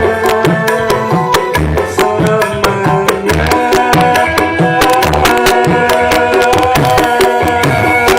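Live pop band music without vocals: drums striking on a quick steady beat under sustained instrument chords.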